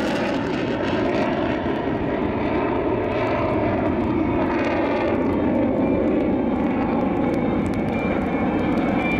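Mitsubishi F-2 fighter's single F110 turbofan engine on afterburner, a loud, steady jet engine noise as the jet climbs away, with a slow sweeping, phasing shift in its tone.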